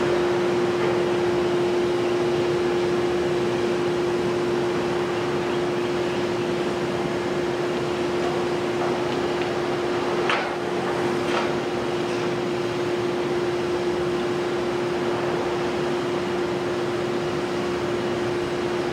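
Komatsu PC490 long-reach demolition excavator running steadily under work, its engine and hydraulics giving an even drone with one constant hum. Two short, higher sounds come about ten and eleven seconds in.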